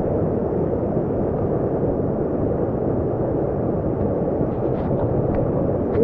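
Mountain stream rushing over rocks right beside the microphone: a steady, loud rush of water.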